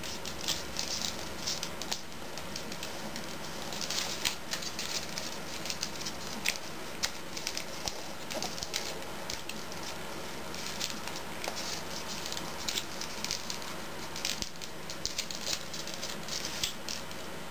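Thin origami paper crackling and rustling in short, irregular crinkles as it is pinched, creased and folded by hand, over a steady low hiss.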